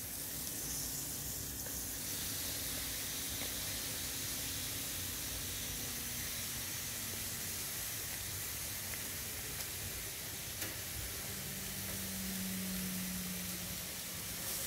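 Bacon sizzling on a hot barbecue hotplate: a steady frying hiss, with a couple of small ticks near the middle.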